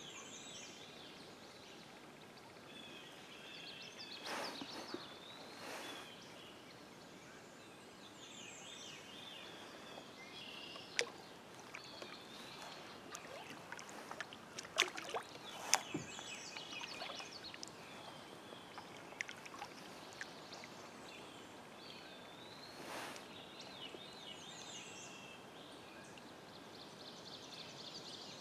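Songbirds singing in short repeated chirpy phrases, with a few water swishes from a kayak paddle and several sharp knocks against the kayak.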